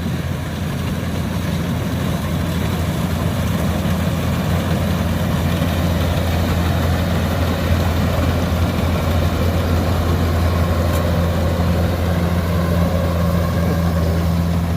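Kubota DC-105X combine harvester's diesel engine running steadily as the machine works through a rice crop, a loud low drone with the hum of its machinery, growing a little louder over the first couple of seconds.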